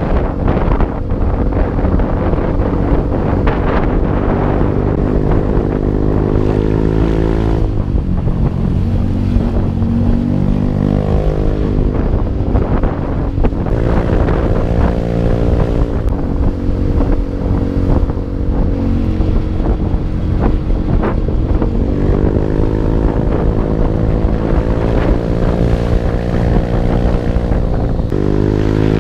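Motorcycle engine running on the move, its pitch dipping and rising several times as it slows and speeds up, with wind buffeting the microphone.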